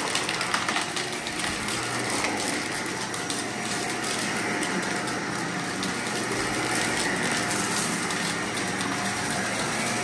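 Vacuum cleaner running steadily, its motor hum held at one pitch under an even rush of air, with scattered crackles and ticks of debris being sucked up, thickest in the first couple of seconds.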